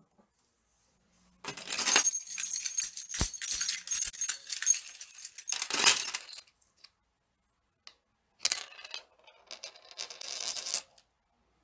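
Small metal objects jingling and clinking in two bursts, a long rattle with one sharp knock partway through and a shorter one near the end. They are shaken by hand as a dubbed sound effect for rummaging in pockets.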